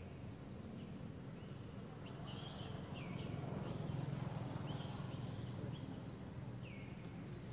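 Short bird calls that fall in pitch, repeated about every second, over a steady low rumble that swells midway through.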